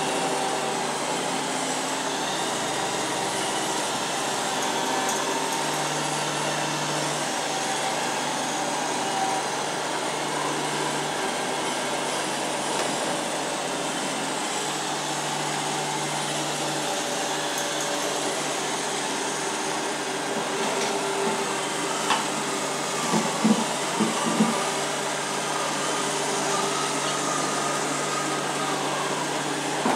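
Robot vacuum cleaner running steadily with the whirr of its motor and brushes, its low hum stepping up and down a few times, and a few short knocks about twenty-three seconds in.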